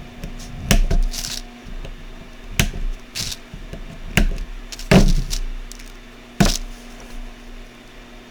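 Side cutters snipping the excess leads off LEDs soldered into a circuit board: a series of short, sharp clicks a second or two apart.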